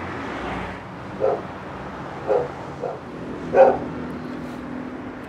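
A dog barking, four short barks at uneven intervals.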